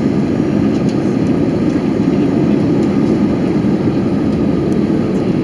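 Steady cabin roar inside an Airbus A320-214 in flight, from its CFM56 engines and the rush of air along the fuselage, heard from a seat near the wing.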